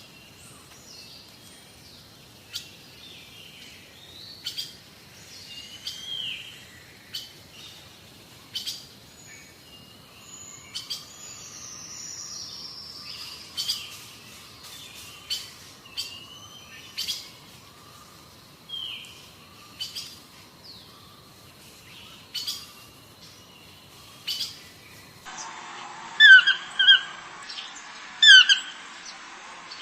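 Wild birds chirping and calling in short notes and quick glides, with scattered sharp clicks. About 25 seconds in the sound cuts to a louder bird giving short, sharp calls in quick pairs.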